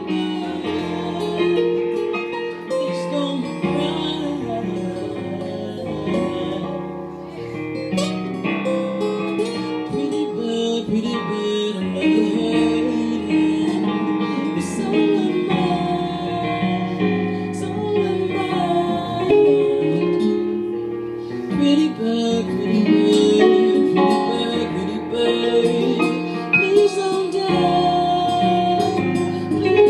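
Music: plucked acoustic guitar with a singing voice.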